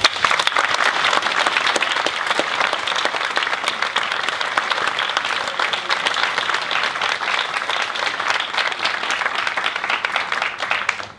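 Audience applauding, a dense, steady clapping that cuts off suddenly at the end.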